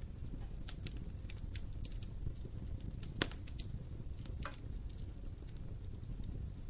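Wood fire crackling in a fireplace: scattered sharp pops and snaps over a steady low rumble of flames, with one louder pop a little past three seconds in.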